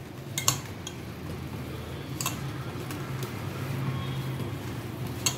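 A hand kneading damp, crumbly semolina dough in a steel bowl, with a few sharp clicks against the bowl and a steady low hum underneath.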